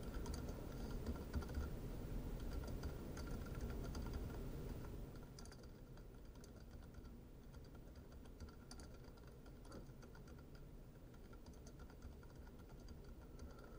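Computer keyboard typing, faint, in short bursts of keystrokes with pauses between them.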